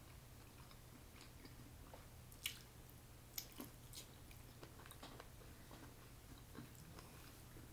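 Near silence with faint mouth sounds of biting into and chewing a piece of sausage: a few soft clicks and smacks, the clearest about two and a half and three and a half seconds in, over a faint low hum.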